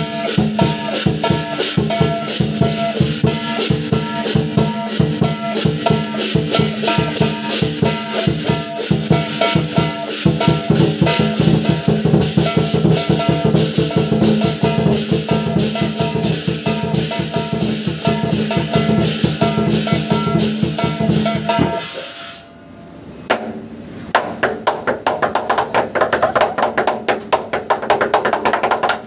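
Lion dance percussion: a large Chinese drum beaten in fast strokes together with clashing cymbals and a ringing gong. Near the end it breaks off briefly, then starts again with quick strokes.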